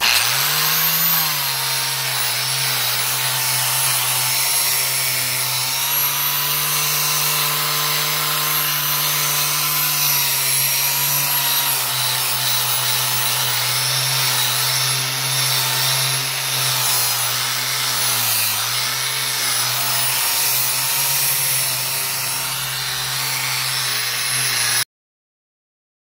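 Angle grinder fitted with a hook-and-loop backing pad and sanding disc, spinning up and then running steadily while sanding a wooden board. Its whine dips briefly once about two-thirds through, and the sound cuts off suddenly near the end.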